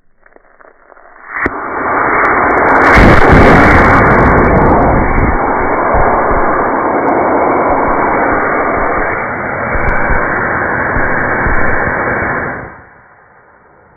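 Model rocket motor burning, heard slowed down in a slow-motion replay: a long, deep rushing roar that starts suddenly about a second and a half in, peaks soon after, and cuts off near the end.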